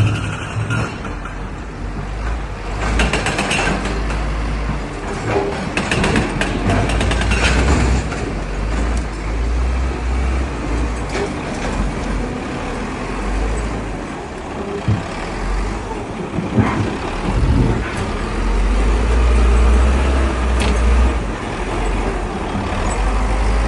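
Heavy diesel earthmoving machinery running at a work site: a steady, deep engine rumble with bursts of clanking and rattling, heaviest a few seconds in and again past the middle.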